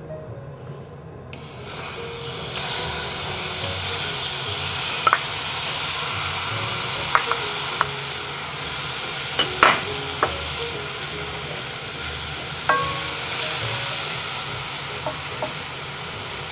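Cherries sizzling with a steady hiss in a hot saucepan over a gas flame, stirred with a wooden spatula, with a scattering of light knocks of fruit and spatula against the pan.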